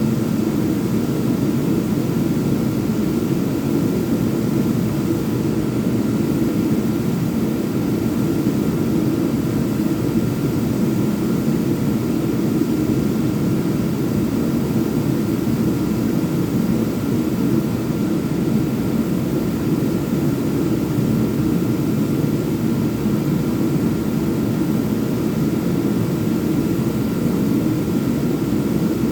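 Electric power sander running steadily, an even mechanical drone.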